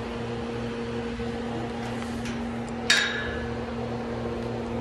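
A steady low mechanical hum, with a single sharp metallic clink about three seconds in that rings briefly.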